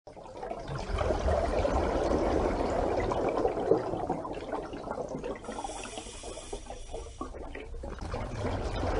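Water sound, an uneven watery wash that fades in over the first second, thins out in the middle and swells again near the end.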